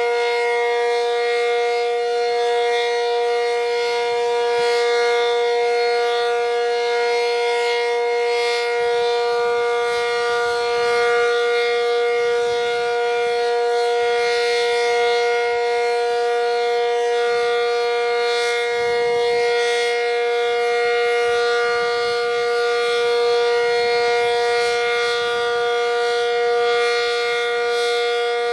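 ASC Cyclone C-125 outdoor warning siren sounding its Full Alert steady tone. It holds one unchanging chord with slight swells in loudness every few seconds. The siren is reverse wired.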